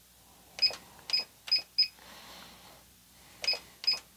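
Singer Heavy Duty 6800C sewing machine's keypad beeping as its buttons are pressed, each short high beep confirming a key press. Four beeps come in quick succession, then two more after a pause.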